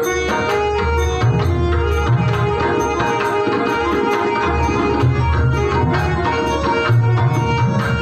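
Tabla and pakhavaj drumming a dense, fast rhythm together, with heavy bass strokes coming in clusters, over a harmonium holding steady notes: bhajan accompaniment.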